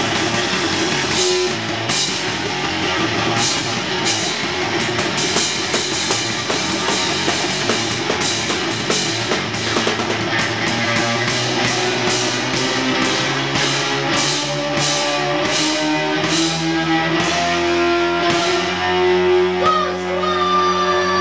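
A rock band playing live: electric guitar over a drum kit, with cymbal hits about twice a second. Near the end the cymbal hits stop and long held notes ring out.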